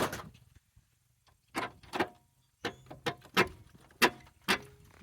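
About six sharp metallic knocks and clanks, a few with a brief ringing after them, from the broken rear assembly of a homemade RC bulldozer being handled; its bearing has failed and the part has broken out completely.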